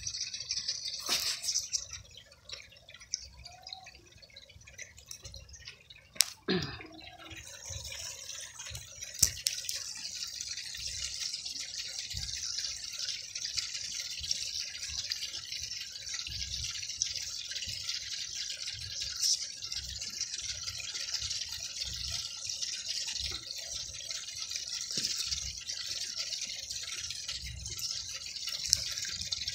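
Steady trickling and dripping of water, with a few sharp clicks, the loudest about six seconds in.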